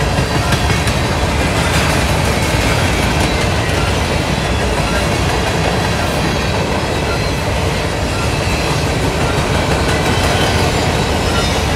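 Covered hopper cars of a Norfolk Southern grain train rolling past, a steady, loud rumble of steel wheels on the rails.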